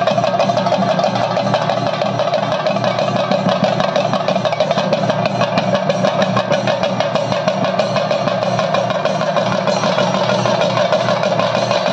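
Chenda drums played in a fast, continuous roll.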